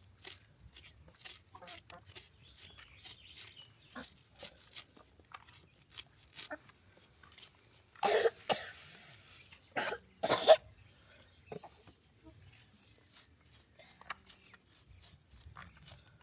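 Coughing: a couple of loud coughs about eight and ten seconds in, over faint scattered clicks.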